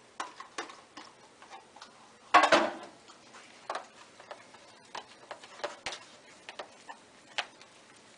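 Utensil clicking and scraping against a small plastic bowl while goat cheese is mixed with chopped herbs, in irregular taps, with one louder, longer clatter about two and a half seconds in.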